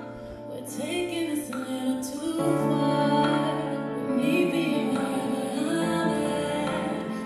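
A song with a female singing voice over sustained bass notes, played back through an L-Acoustics SYVA column speaker system with SYVA LOW and SYVA SUB bass units and heard in the demo room.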